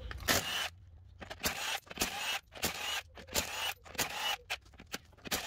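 Milwaukee Fuel cordless impact wrench spinning lug nuts off a truck wheel in a quick series of short trigger bursts, each a brief motor whine.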